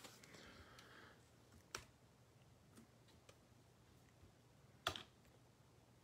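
Near silence with the last faint crinkle of foil pack wrapping, then a few faint clicks and taps of trading cards and packs being handled on a table. The loudest tap comes about five seconds in.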